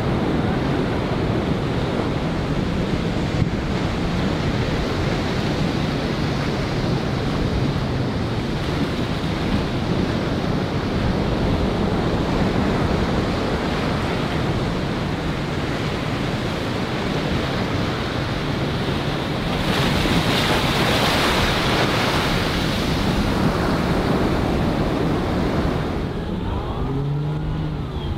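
Sea waves washing and breaking, with wind buffeting the microphone and a louder surge of splashing about two-thirds of the way through. Near the end an outboard motor comes in, its pitch rising and falling.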